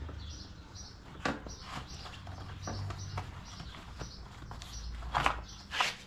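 Quiet handling of a tubeless mountain bike tire and rim, with faint clicks and two short scuffs about five and six seconds in, over faint bird chirps.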